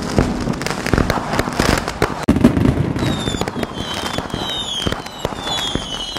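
Fireworks sound effect: dense crackling and sharp pops, joined about halfway through by a run of short falling whistles, one every half second or so.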